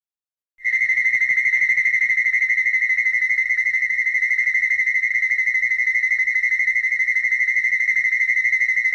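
Showa King Ghidorah sound effect: a steady high electronic tone with a fast flutter and a low buzz beneath it, starting abruptly about half a second in.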